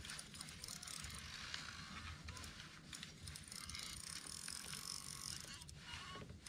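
Fishing reel being cranked steadily, a continuous whirring with fine ticking, as a hooked fish is reeled in.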